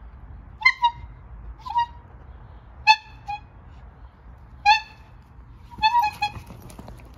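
Squeeze-bulb bicycle horn honking in short blasts: one pair, single honks and pairs spread over several seconds, then a quick run of three near the end.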